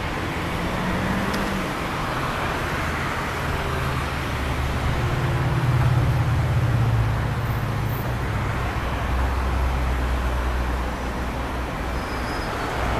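Diesel engine of a diesel-hauled push-pull commuter train approaching out of a tunnel: a steady low rumble that swells about halfway through, over a constant wash of city traffic noise.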